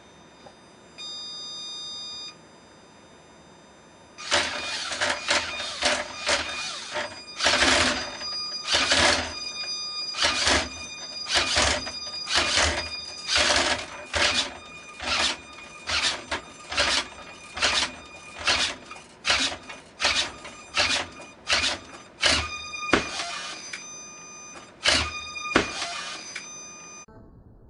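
A small servo-driven horizontal-bar gymnast robot swinging round and round its bar, each revolution making a rattling whoosh, a little over one a second, after a short steady beep about a second in. The swinging stops shortly before the end, as the robot dismounts with a quadruple backflip.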